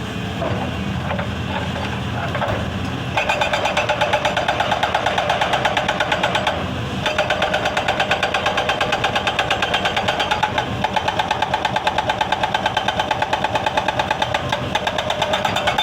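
Excavator engine running, then about three seconds in a hydraulic breaker starts hammering stone in a fast, steady rhythm of about ten blows a second, stopping briefly about halfway before carrying on.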